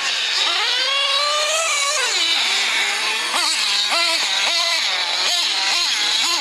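Small glow-fuel engines of 1/8-scale nitro RC buggies racing, with a high whine. One engine climbs in pitch and holds it, then gives about six quick throttle blips over three seconds, dropping back between each, before winding up again near the end.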